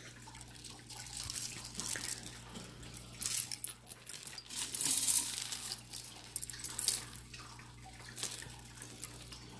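Small pieces of costume jewelry being handled and picked through: chains, clips and rings clinking and rustling in light, irregular clicks, busiest around three to five seconds in.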